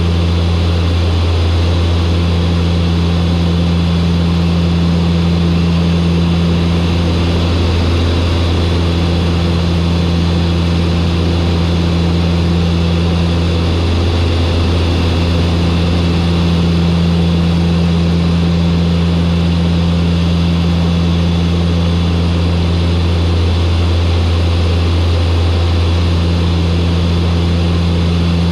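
Turboprop aircraft on final approach, its propellers giving a loud, steady low drone. A higher hum above it fades out and returns three times.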